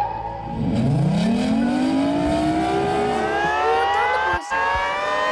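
Civil defense siren winding up: a low tone starts about a second in and rises steadily in pitch. It cuts out briefly once near the end.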